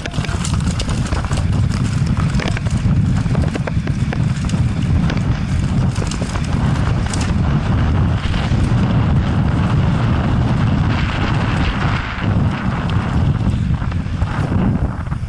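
Downhill mountain bike at race speed, heard from a helmet-mounted camera: heavy wind rumble on the microphone over the clatter and knocks of the tyres and bike hitting rocks and roots. The knocks thin out about halfway through as the trail turns to smoother packed dirt.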